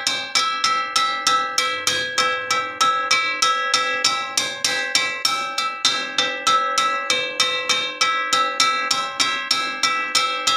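Metal wok struck over and over with an even rhythm, about three hits a second, each strike ringing with a bell-like metallic tone.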